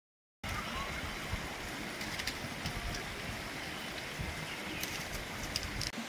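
Mountain stream water rushing steadily over rocks, cutting in abruptly about half a second in after digital silence.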